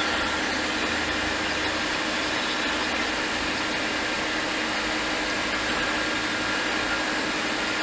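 Steady blowing hiss of a fan-driven bench tool with a faint even hum, unchanging throughout.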